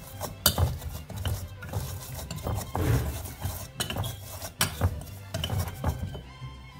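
Metal potato masher clinking and scraping against a glass bowl as it crushes minced garlic, coarse salt and rosemary: irregular sharp clinks, one or two a second, dying away near the end.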